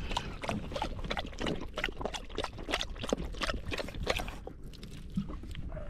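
A Doberman lapping at water poured from a plastic bottle into its mouth, with the spill splashing and dripping onto the boat deck: a quick, irregular run of wet clicks and splashes.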